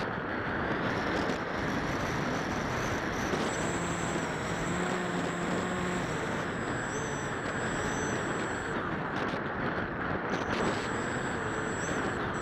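Steady rush of wind over the onboard camera of an RC plane in turbulent flight. A faint, thin high whine comes in about three and a half seconds in and again near the end.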